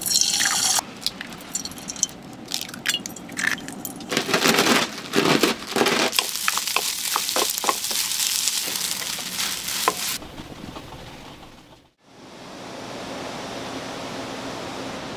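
Kitchen cooking sounds: utensils and dishes clinking and clattering over sizzling food. After a cut near the end they give way to a steady hiss.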